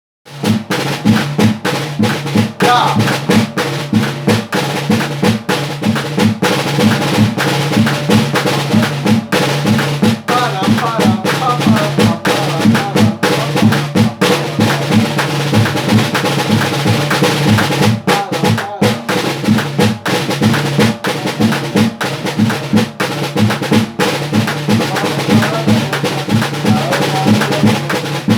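A snare drum played in a busy Pacific-style rhythm, with a tin can struck as a bass drum keeping a steady low pulse of about three beats a second.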